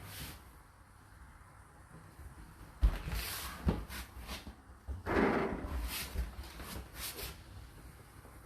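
Household handling noises: a few knocks and clunks, the sharpest about three seconds in, then a longer rustling scrape around the middle, like cupboard or appliance doors and items being moved about.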